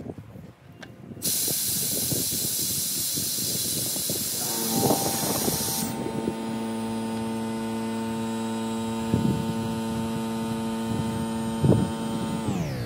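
Steady rush of air from a compressed-air-powered vacuum bleeder drawing old fluid out of a clutch hydraulic system; the hiss cuts off about six seconds in. A steady pitched motor hum, taken for the air compressor running, joins partway through and slides down in pitch at the very end.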